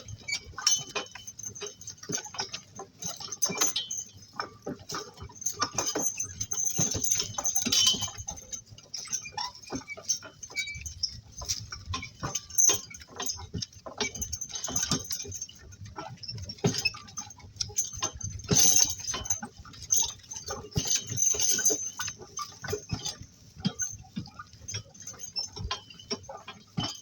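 Donkey-drawn work cart in motion: steady irregular rattling, knocking and clinking from the cart and the donkeys' harness.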